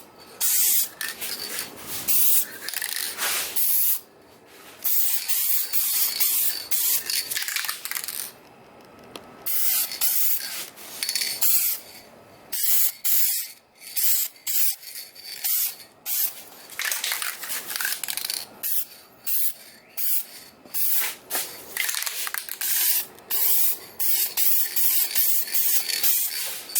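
Aerosol spray can of Dupli-Color plastic adhesion promoter hissing in repeated short bursts, with brief pauses between passes, as a light coat goes onto plastic trim.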